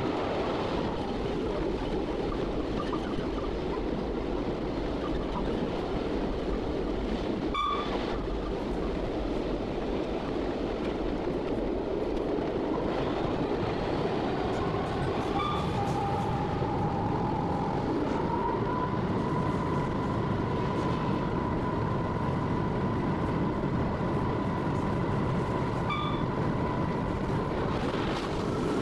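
Class 66 diesel locomotive heard from its cab while under way: the EMD two-stroke V12 engine running with a turbocharger whine that rises about halfway through and holds, over the steady rumble of wheels on rail. Three short beeps sound along the way.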